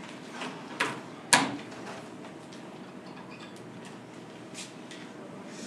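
Quiet room tone with two sharp knocks about a second in, the second the louder, then a few faint clicks near the end.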